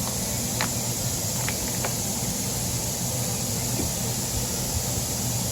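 A few faint clicks from channel-lock pliers being squeezed on a brake caliper to push the piston back in, over a steady background hum and hiss.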